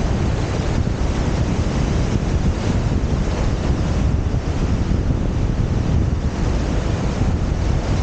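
Wind buffeting the microphone in a steady, rumbling rush, over the wash of surf breaking along the shore.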